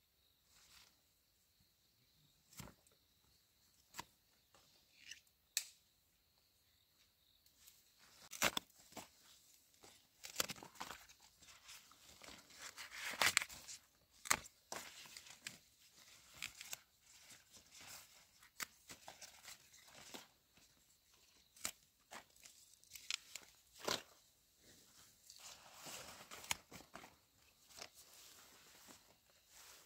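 Irregular tearing, rustling and crunching with scattered sharp knocks, busiest through the middle of the stretch and again near the end.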